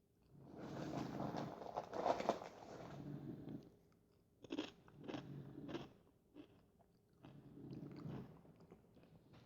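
Fritos corn chips being bitten and chewed close to the microphone: a dense run of crunching in the first few seconds, then a series of sharp single crunches.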